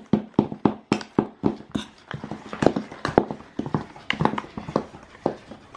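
Metal spoons clinking and scraping against a stainless steel mixing bowl as dry flour is stirred, in quick irregular taps.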